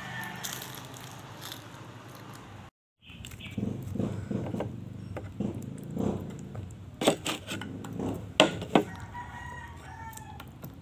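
Eating close to the microphone: chewing and crunching of fried pork lumpia, with a few sharp crisp clicks about seven and eight and a half seconds in. A rooster crows in the background near the start and again near the end, and the sound cuts out completely for a moment just before three seconds in.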